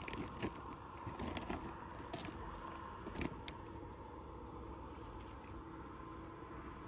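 Scattered scrapes and knocks of hooves on dirt and straw in the first few seconds, from a newborn foal scrambling to get its legs under it. After that only a faint steady hum remains.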